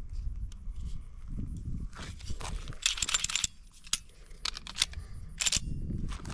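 A pistol being handled: a quick run of sharp metallic clicks and rattles about three seconds in, then a few single clicks, over a low wind rumble on the microphone.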